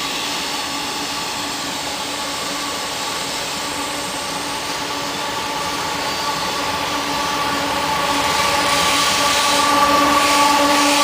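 Approaching CSX freight train led by GE GEVO diesel locomotives. The engines run with a steady whine, and it grows steadily louder. From about eight seconds in, rising wheel and rail noise joins it as the lead unit comes close.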